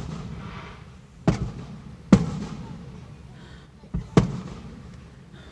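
Aerial fireworks booming: four sharp bangs, one about a second in, a louder one just under a second later, and a quick pair near the end, each followed by a rolling echo that fades away.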